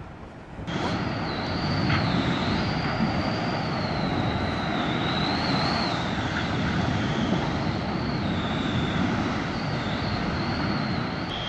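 Steady roar of a large fire from burning crude-oil tank cars, starting abruptly less than a second in, with a thin high tone wavering slowly up and down over it.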